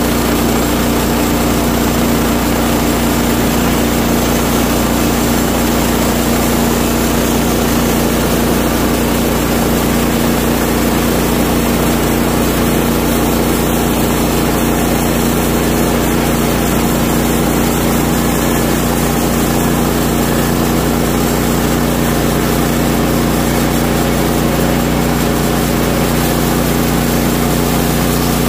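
Woodland Mills HM130MAX bandsaw mill's engine running steadily under load as the power head feeds the blade along through a log.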